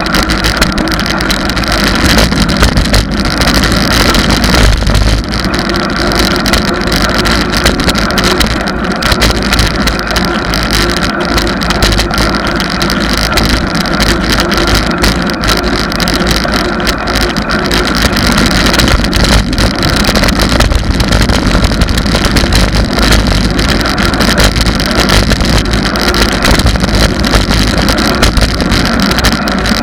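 Loud, steady wind rush and road rumble on a camera riding on a moving bicycle.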